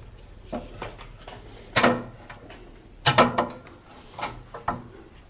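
Scattered metal clunks and knocks from a Caterpillar D4 steering clutch assembly and its brake band being shifted by hand while the assembly hangs in lifting straps. About five separate knocks, the loudest two coming about two and three seconds in.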